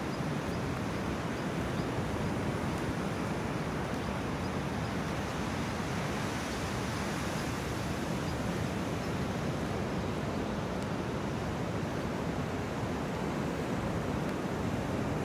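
Strong sea waves breaking on the shore, a steady wash of surf, with wind on the microphone adding a low rumble.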